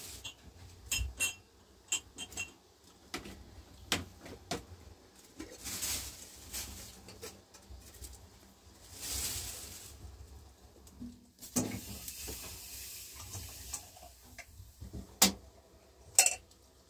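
Scattered knocks and clinks of objects being handled, the sharpest about fifteen seconds in, with a few soft rustling hisses between them.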